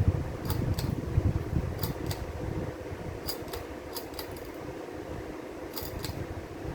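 42-inch Gulf Coast Georgianne ceiling fan running on high speed: a steady motor hum and rush of the blades. Light ticks come in pairs about every second and a half.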